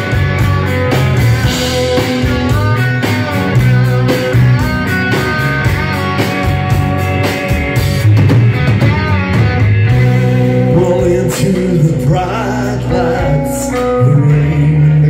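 Live rock band playing with no vocal lines transcribed: electric guitars, bass and drums with steady cymbal strokes. A lead line with bent, wavering notes rises above them through most of the passage.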